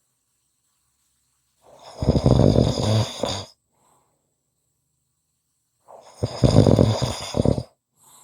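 A person snoring: two loud snores, each just under two seconds long, about four seconds apart, with dead silence between them.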